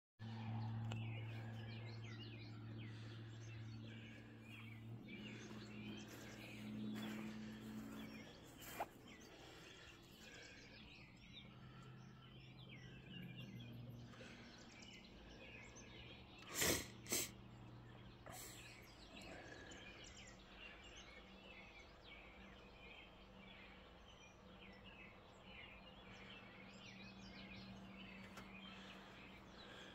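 Faint outdoor birdsong, with many small birds chirping throughout over a low steady hum. Two sharp knocks come close together about halfway through.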